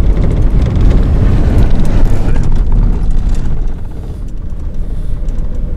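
Car driving along a rough dirt track, heard from inside the cabin: a steady low rumble of engine and road noise that eases somewhat about two-thirds of the way through.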